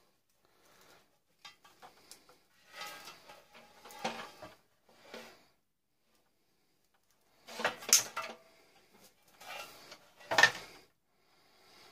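Scattered knocks, clinks and rattles of scrap parts and wire from a tube TV being handled during stripping, with two louder knocks in the second half.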